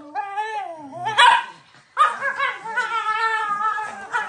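Two Shiba Inus squabbling, crying and barking at each other: a sharp, loud cry about a second in, then a long wavering cry through the second half.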